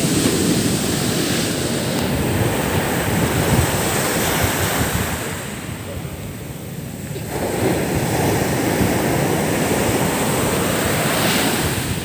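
Rough surf breaking on a sandy beach: waves crashing and foam rushing up the sand, with the sea getting stronger. The rush eases for a couple of seconds a little past halfway, then the next wave surges in.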